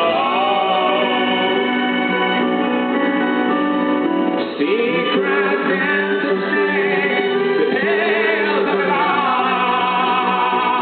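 A rock band playing live, with a male singer holding long, wavering notes over the band. The voice slides between notes about four and a half seconds in and again near eight seconds.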